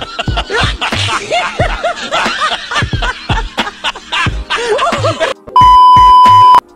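A burst of dubbed laughter, repeated high cackles, over a music track's drum beat. About five and a half seconds in it gives way to a loud, steady TV test-pattern beep that cuts off just before the end.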